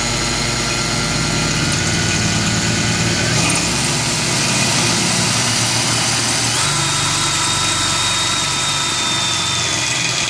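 Power drill running steadily with a 4.5 mm bronze-coloured twist bit boring through a thick metal support beam, probably galvanized. The motor's pitch shifts twice, and it stops suddenly near the end as the bit breaks through.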